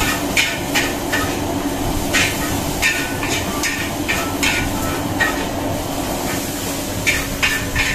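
Metal spatula clanking and scraping against a wok while stir-frying noodles, about ten irregular strikes, each with a short metallic ring, over a steady rushing hum.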